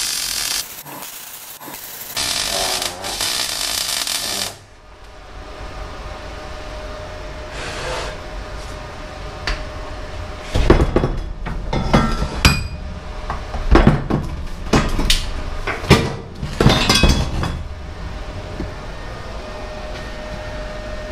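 Electric welding arc crackling on steel box-section in two short runs, stopping about four and a half seconds in. Later comes a run of about a dozen sharp metal clanks and knocks with a ringing tail, steel tube knocking.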